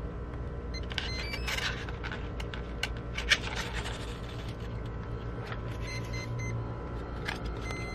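Plastic battery connector clicking as the LiPo is plugged into an E-flite Edge 540QQ micro foam plane, then a few short electronic beeps as its electronics power up.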